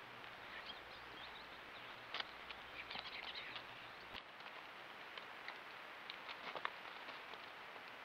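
Steady faint hiss from a trail camera's microphone, with a few faint, high bird chirps in the first half. Several sharp clicks come about two seconds in and again near six and a half seconds.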